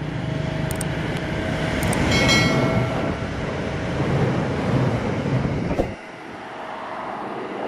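A train running past with a steady rumble. A few sharp clicks and a short chime about two seconds in are laid over it, and the low rumble drops away about six seconds in.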